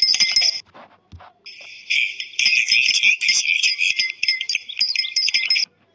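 High, bright jingling like small bells or glass being shaken, in two stretches with a gap of about a second near the start.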